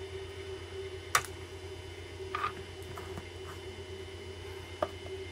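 Wire cutters snipping off a capacitor's lead to make a jumper wire: a sharp snip about a second in, a few fainter clicks of handling, and another sharp click near the end.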